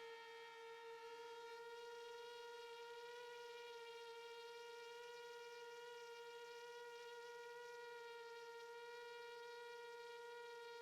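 Faint, steady whine of an FPV drone's motors and propellers: one held buzzing tone with many overtones, its pitch barely changing.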